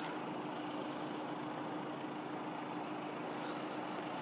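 Electric express train running through the crossing: a steady rolling noise with a constant hum.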